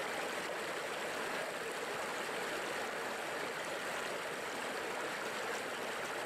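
Shallow rocky stream, water running steadily over and between boulders.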